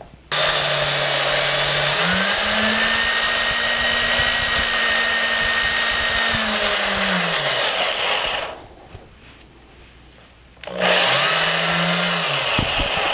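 Corded electric drill running in a bench jig, spinning a small metal rod that is being polished with a micro-mesh sanding cloth. The motor whine climbs in pitch as the drill speeds up, holds steady for several seconds, then winds down and stops; after a two-second pause it runs again briefly and winds down.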